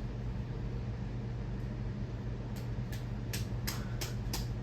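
Mainstays 42-inch ceiling fan running with a steady motor hum. A run of light clicks comes in the second half, about three a second.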